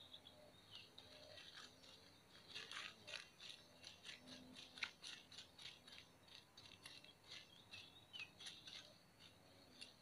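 Faint rapid clicking and rustling of dry nest material as a greater coucal works with its head down in the nest among its chicks, with a couple of brief, faint high chirps.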